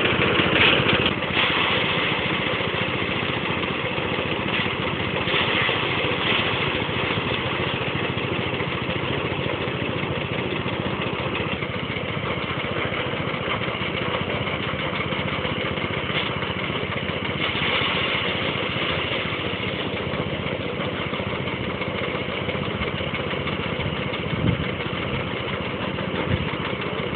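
Diesel engine running steadily, driving a rice threshing machine. A couple of short knocks near the end.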